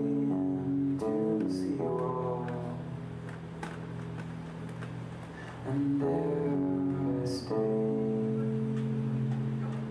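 Stratocaster-style electric guitar played live: held chords ringing out and changing every second or two, quieter in the middle and louder again about six seconds in.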